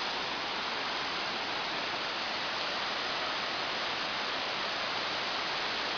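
Waterfall: a steady rush of falling water with no change.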